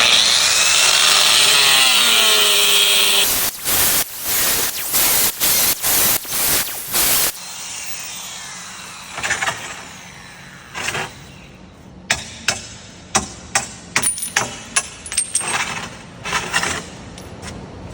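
Angle grinder cutting into ceramic tile for about three seconds, then a run of short bursts as it shaves and trims the cut. Later come a few brief grinder touches and a string of sharp clicks and taps as pieces of tile are knocked off.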